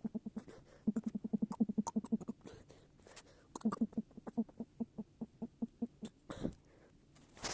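A person making walking sounds with the voice: trains of short pitched pulses, about ten a second at first, then a slower run of about five a second after a pause.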